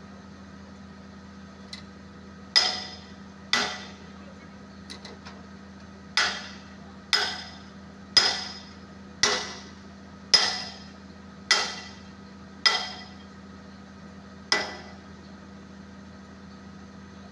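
Hammer blows on a steel bucket pin of a Komatsu crawler excavator, about ten sharp, ringing metal-on-metal strikes roughly a second apart, knocking the pin out to change the bucket. The excavator's engine idles steadily underneath.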